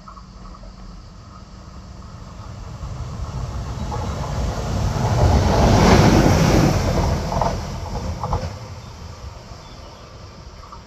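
Electric locomotive running on its own, a Captrain-livery E494 (Bombardier Traxx), passing at speed on the line. The rumble of its wheels on the rails builds, peaks about halfway through and dies away, with a couple of wheel clicks over rail joints as it goes by.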